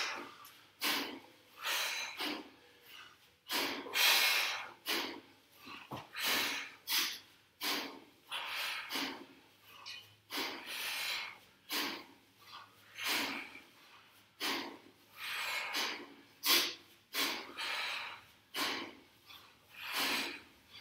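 Forceful breaths, short sharp exhales and sniffs, from people doing kettlebell swings, coming about one to two a second, irregular as two swingers breathe out of step.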